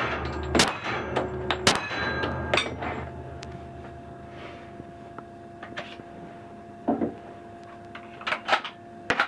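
Three single shots from a suppressed rifle, about a second apart, followed by a few light clicks and knocks as the rifle is handled.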